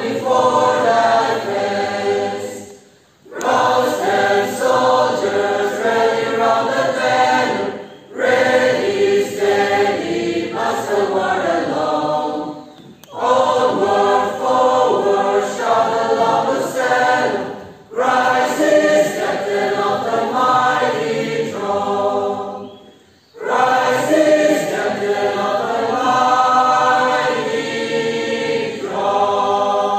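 A mixed congregation of men and women singing a hymn together. The hymn comes in long phrases of about five seconds each, with a brief pause for breath between them.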